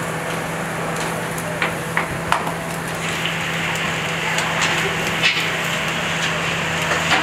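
Meat kebabs on metal skewers sizzling over a charcoal grill, a steady hiss with a low steady hum beneath. Several sharp clicks come through, a cluster about two seconds in and a couple more past the middle.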